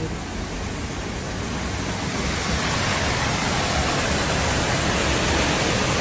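Steady rushing of the Düden waterfall's falling water, growing louder and brighter about two seconds in.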